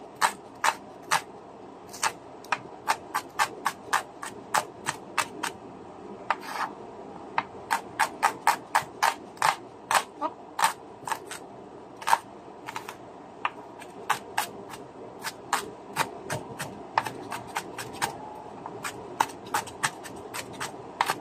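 Kitchen knife chopping a small red onion on a bamboo cutting board: sharp knocks of the blade on the wood, in uneven runs of a few chops a second.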